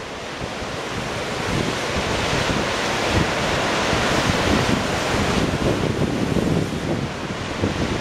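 Storm-driven lake waves breaking and washing over shore rocks, a surge of surf swelling over the first few seconds and easing off near the end. Gusty wind buffets the microphone underneath.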